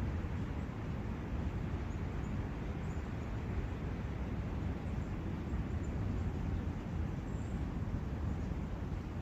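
Forest ambience of wind and a brook: a steady low rushing noise with no change, with a few faint high chirps.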